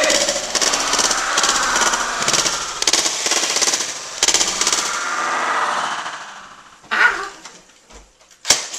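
Rapid rattling machine-gun fire sounds for about six seconds, fading out. Then a single thump, and a sharp knock near the end.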